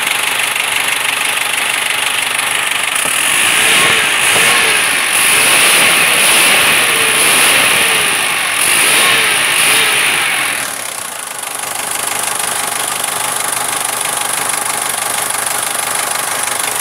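Diesel engine with a Bosch VE rotary injection pump, idling and then revved up and down several times from the pump's throttle lever. It settles back to a steady idle about eleven seconds in.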